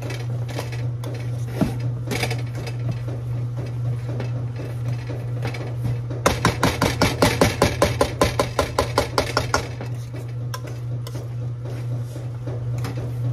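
A kitchen utensil worked rapidly against a pot or bowl, clattering in a fast even rhythm of about seven strokes a second for roughly three seconds midway, with scattered knocks of utensils before and after. A washing machine hums steadily underneath.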